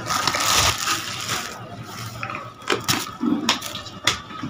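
Kitchen handling noise: a rustle lasting about a second and a half, then four sharp clicks and knocks.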